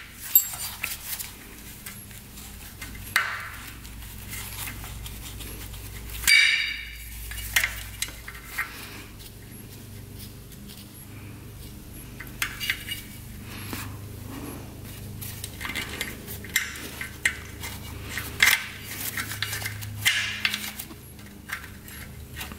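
A hand wrench clinking and scraping on the clutch release arm nut and linkage of a 1980 Suzuki RM125 as it is loosened, with irregular small metal clicks. About six seconds in there is a louder metal clank that rings briefly.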